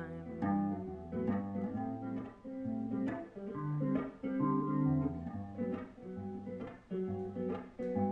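Guitar, most likely acoustic, strumming a chord progression with no vocal: an instrumental passage of a song, with chords struck about once or twice a second.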